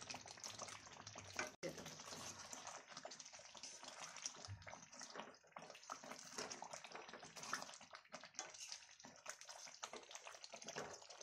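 Mango pickle in jaggery syrup bubbling as it cooks down in a steel pan, with a flat spatula stirring through it and scraping the pan. Faint, with many small pops and clicks.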